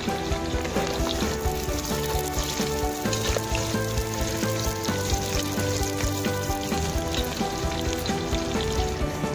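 Hot oil sizzling steadily as onion rings fry in a cast-iron kazan over a wood fire, with background music playing.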